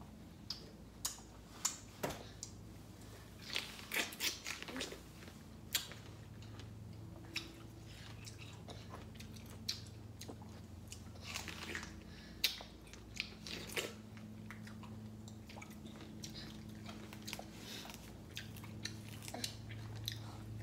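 A baby chewing and biting into juicy star fruit: irregular small wet clicks and crunches, some louder than others, over a steady low hum.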